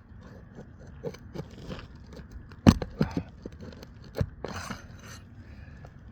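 Roofing nails being pried out from under 3-tab asphalt shingles with a metal tool: scattered clicks, scrapes and a few sharp knocks, the loudest about two and a half seconds in. The nails hold tight and resist coming up.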